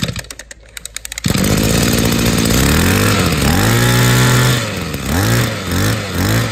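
Hitachi 23cc two-stroke brush cutter engine running. It drops away for about a second at first, then picks up and is revved repeatedly, each blip of the throttle a rising then falling whine, coming faster near the end.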